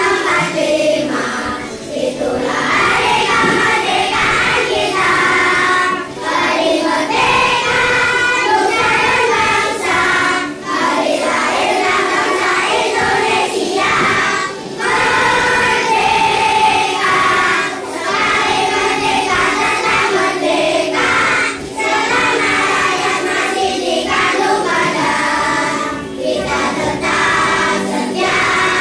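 A children's choir singing together, phrase after phrase with brief breaks between phrases.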